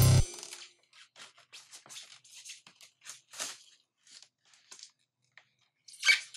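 Background music cuts off right at the start. Then a styrofoam packing lid scrapes and rubs against its foam base as it is worked loose and lifted off, in short, irregular scratchy bursts, with a louder scrape about six seconds in.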